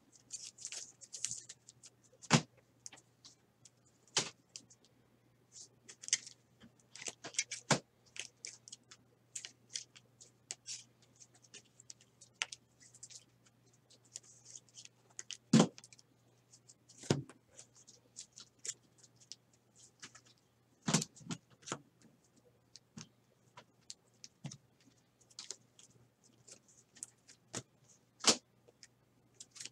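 Trading cards in hard plastic top-loaders and sleeves being handled and sorted: irregular clicks and taps as the plastic holders knock together, with soft sliding and rustling in between. A faint steady low hum runs underneath.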